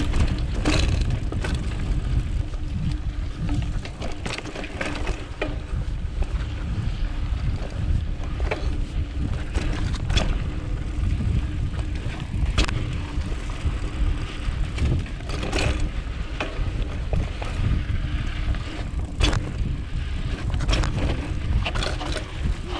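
Mountain bike riding down a dirt singletrack: heavy wind rumble on the microphone over tyre noise, with scattered sharp clacks and rattles from the bike as it hits bumps. The Manitou Machete air fork is locked out.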